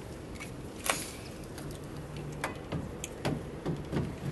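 Trailer electrical plug and cord being handled and pushed into the pickup's bumper socket: a few short, light clicks and knocks, the sharpest about a second in.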